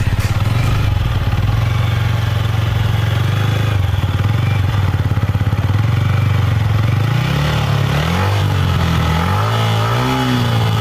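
Yamaha MT-15's single-cylinder engine idling through its exhaust, then revved in several short throttle blips from about seven seconds in. The bike has covered over 16,000 km.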